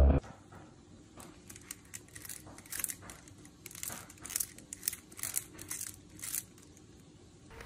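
A cat biting and chewing the woven rim of a wicker basket: a string of short, irregular crunchy crackles from the cane.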